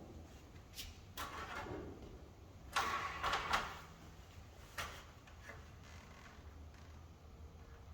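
Handling noises as the van window is lifted and set into its opening: scattered clicks and knocks, with a louder stretch of rustling and scraping about three seconds in, over a steady low hum.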